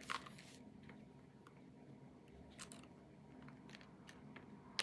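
Quiet room tone with a few brief crinkles and taps from a boxed toy package being handled, the loudest right at the start.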